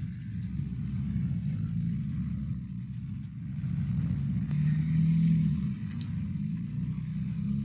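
A vehicle engine running, a steady low rumble whose pitched hum grows stronger about halfway through.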